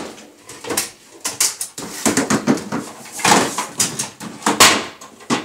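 Irregular knocks, scrapes and rustling as plastic containers and other objects on a table are handled and moved about while someone searches among them, with phone handling noise mixed in.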